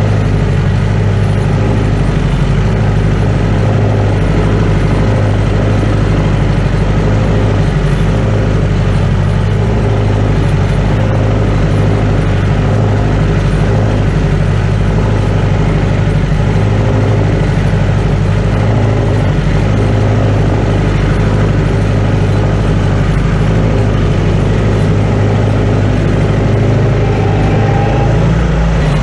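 A 1956 Case 300 tractor engine running steadily under load while it pulls a moldboard plow.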